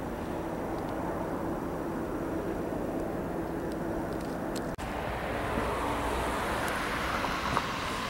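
An engine running steadily with a low hum, broken by a short cut about five seconds in.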